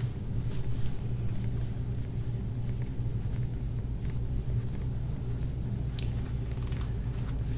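Steady low mechanical hum, like a motor or fan running, with a few faint soft clicks over it, one sharper near the end.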